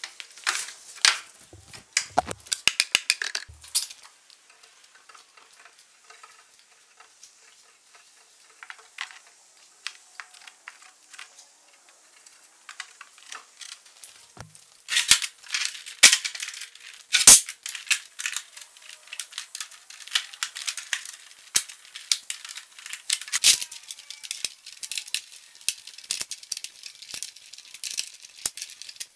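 Wooden clamps clattering and clicking as they are handled and set along a cedar strip canoe's gunwale: irregular sharp clicks and knocks with a few dull thumps, sparse for several seconds in the middle and dense again in the second half.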